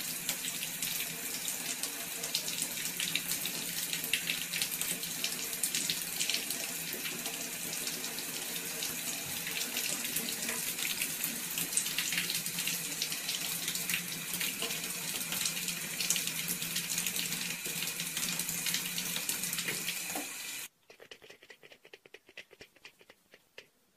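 Bathtub faucet running a thin, steady stream of water into the tub. It cuts off abruptly a few seconds before the end, leaving only faint clicks.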